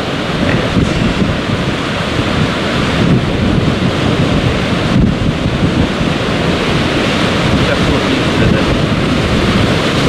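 Wind buffeting the microphone over the steady wash of sea surf against rocks, a continuous rushing noise heavy in the low end.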